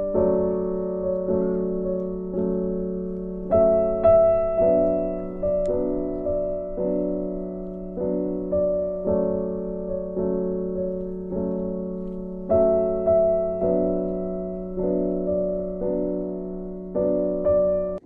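Background music: slow, gentle piano, with notes and chords struck about every half second, each ringing and fading before the next.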